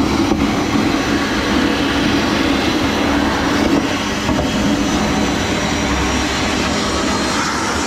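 Wet vac running steadily, sucking the leftover water out of the base of a toilet pan.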